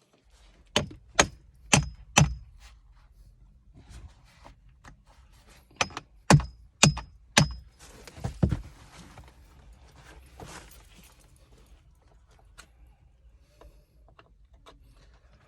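Hammer blows on a chisel cut into a rusted threaded pipe connector: a run of four sharp metal strikes about half a second apart, then another run of four and two more in quick succession. Some blows leave a brief metallic ring.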